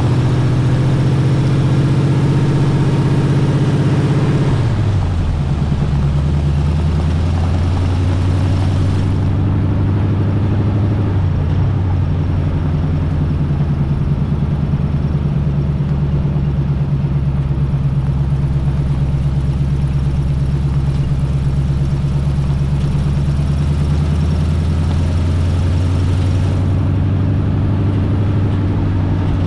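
Chevy 350 small-block V8 of a 1980 K20 pickup running steadily while driving. Its pitch drops about four seconds in, then holds steady at a lower note.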